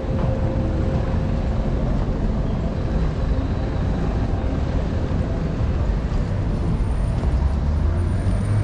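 Motorcycle engine running at low speed, heard from on board as a steady low rumble mixed with road and wind noise, growing a little stronger near the end.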